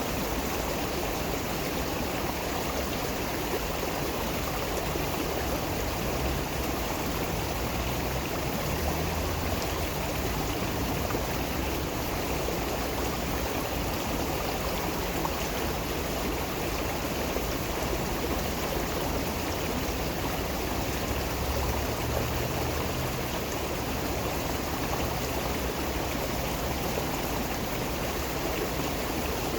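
Water flowing steadily in a stream, an even rushing that does not change.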